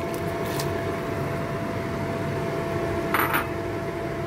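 Dried scallops tipped from a bowl into a stainless-steel stockpot of boiling water, with one short clink of the bowl against the pot about three seconds in, over a steady hum.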